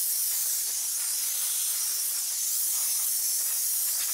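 Compressed-air blow gun giving a steady hiss as it blows out a sheet-metal electronics case, clearing metal filings from drilling and filing.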